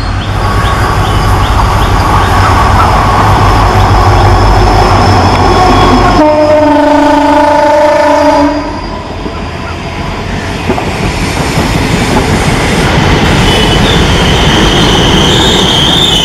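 A WDP4 (EMD GT46PAC) diesel-electric locomotive passes at speed, its 16-cylinder two-stroke engine running loud over the rumble of the train. About six seconds in, the horn sounds one steady blast of about two and a half seconds. Then the coaches rumble past, with a high wheel squeal rising near the end.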